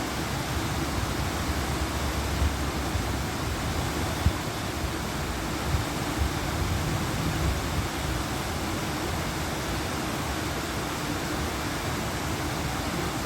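Garden waterfall: water falling and splashing in a steady rush, with a few brief low thumps in the first half.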